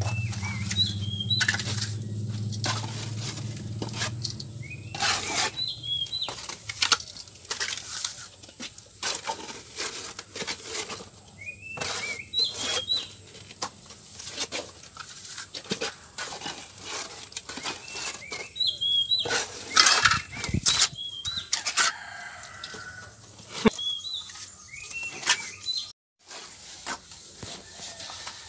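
Cement plaster being slapped onto a brick wall and spread with a steel trowel: irregular wet slaps and scrapes, some strokes much louder than others.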